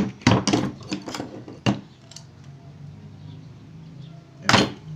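Metal clinks of a screwdriver working on an air rifle's steel receiver: a quick run of clinks in the first two seconds, then one louder clink near the end.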